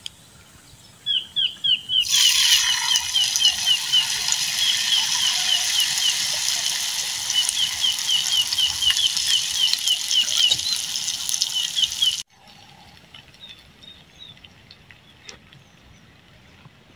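Batter-coated pandan leaves frying in hot oil: a steady sizzle that starts about two seconds in and cuts off suddenly about two-thirds of the way through. Over it a bird calls in quick runs of short chirps.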